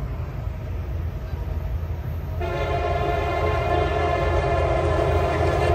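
Air horn of an approaching CSX freight locomotive sounding one long blast of about three seconds, a chord of several steady tones, starting a little over two seconds in. A steady low rumble from the oncoming train runs underneath.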